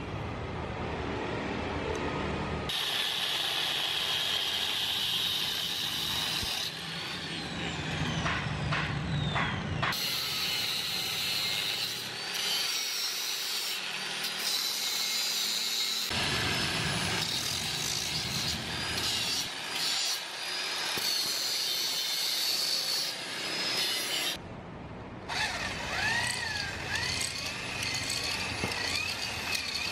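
Power tools working metal in a series of cuts: an angle grinder whining as it cuts a steel plate, and near the end an electric drill boring into a motorcycle engine case, its motor pitch dipping and recovering as the bit bites.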